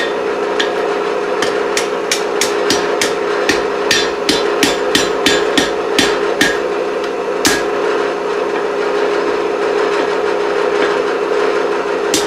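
Hand hammer striking hot steel on an anvil's hardy hot cut: a quick run of about twenty blows, roughly three a second, then one last blow, cutting off the burned, ruined end of a chisel blank. A steady hum runs underneath.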